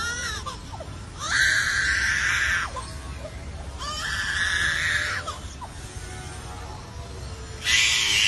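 Lyrebird mimicking a crying baby: three loud wailing cries about three seconds apart.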